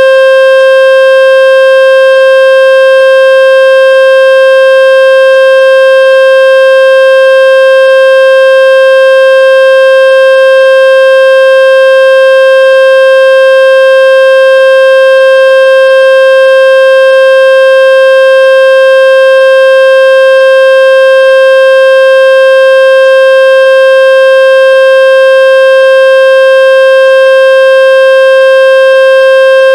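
Loud electronically generated buzzy tone held at one steady pitch around 500 Hz, rich in overtones, played to vibrate water out of a wet loudspeaker.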